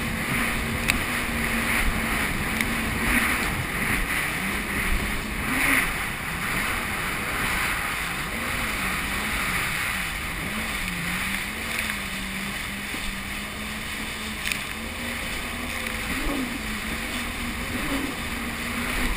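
Jet ski engine running under way, its note wavering up and down in pitch, over a steady rush of water and wind.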